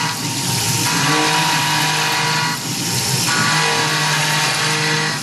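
Tormach PCNC 1100 CNC mill milling a metal fixture plate with an end mill under flood coolant: a steady spindle whine and cutting noise mixed with the hiss of coolant spray. The cutting sound eases and comes back about every two and a half seconds as the trochoidal tool path loops in and out of the cut.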